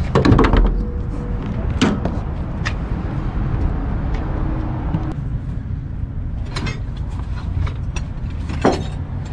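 Hood of a 1973 GMC C2500 pickup being released and raised, heard as a handful of sharp metal clicks and knocks, the loudest at the very start, over a steady low background rumble.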